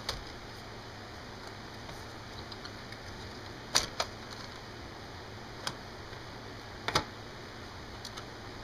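Sharp clicks and light knocks of hard plastic and metal laptop parts being handled on a desk, about six in all, with a close pair about four seconds in and a double click about seven seconds in, over a steady faint hiss.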